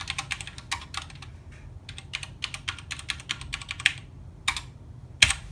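Typing on a custom ten-keyless mechanical keyboard: quick runs of key clacks, thinning out to a few single strokes near the end, the last and loudest about five seconds in.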